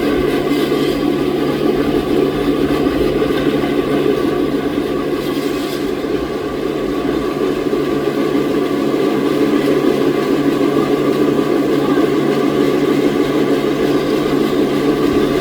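Sawmill machinery running steadily, a continuous loud mechanical drone with a constant hum, dipping slightly about halfway through.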